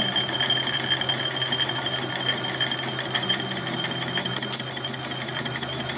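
Manual lathe turning a large roller, the cutting tool on the spinning workpiece giving a high-pitched ringing squeal over the machine's hum. From about two seconds in the squeal pulses about five times a second and gets louder.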